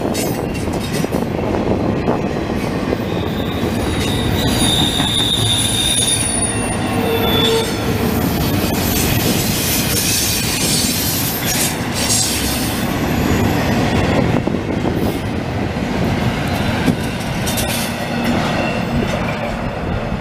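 Double-stack container train's well cars rolling past: a steady rumble and rattle of steel wheels on rail, with high wheel squeal tones that come and go, the strongest from about four to seven seconds in.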